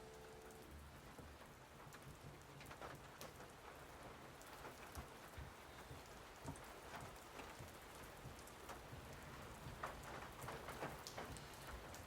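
Faint steady rain with scattered single drops landing at irregular intervals.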